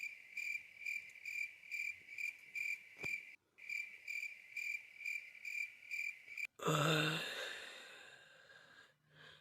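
Cricket chirping, a regular high chirp about twice a second, broken twice by abrupt cuts. Near the end it gives way to a louder, sudden sound that fades out over about two seconds.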